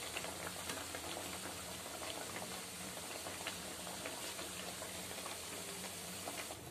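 Hot oil in a kadai bubbling and sizzling steadily around wheat-dough puris as they deep-fry and puff, with many small crackles. The sound changes abruptly just before the end.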